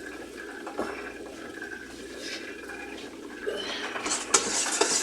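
Low, steady kitchen background, then a metal spoon clicking and scraping against a bowl near the end as the sauce starts to be stirred.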